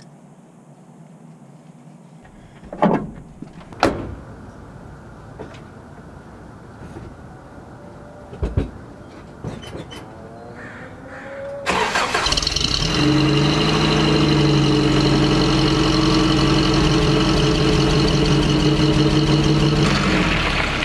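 A few sharp knocks, then about halfway through a Toyota 4x4 pickup's engine starts suddenly and runs steadily at idle, easing off near the end.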